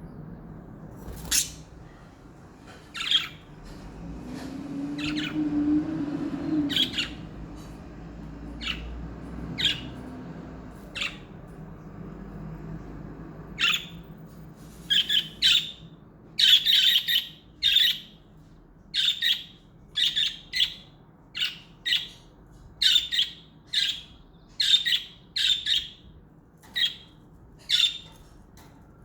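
Pet budgerigars giving short, sharp chirping calls, a few scattered ones at first, then coming steadily about one or two a second through the second half.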